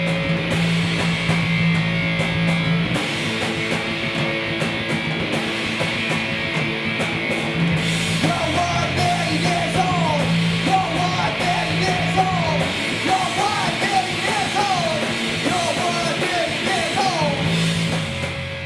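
Noise rock band playing: electric bass and drums with cymbals, joined about eight seconds in by a higher, wavering part.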